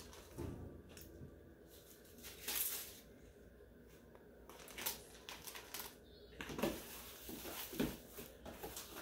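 Faint, scattered rustles and light knocks of kitchen handling: a plastic zipper bag and a plastic food container being handled, in short bursts a second or so apart.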